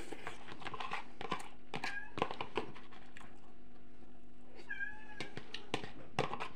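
A domestic cat meowing, a short call about two seconds in and a longer, wavering one near five seconds, among light clicks and knocks.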